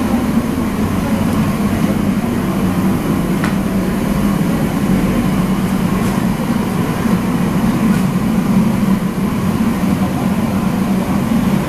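Loud, steady mechanical roar of commercial kitchen equipment, low and even, with one faint click about three and a half seconds in.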